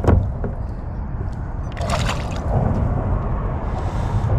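Water splashing and dripping against a kayak, with two short splashes, one at the start and one about two seconds in, over a steady low rumble.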